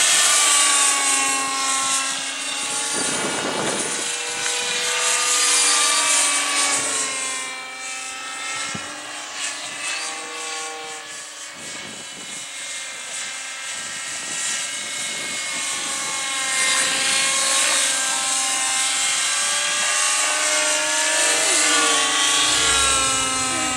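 JR Vibe 50 radio-controlled model helicopter in flight, its engine and rotor whine rising and falling in pitch as it manoeuvres. It grows fainter partway through as it flies farther off, then louder again.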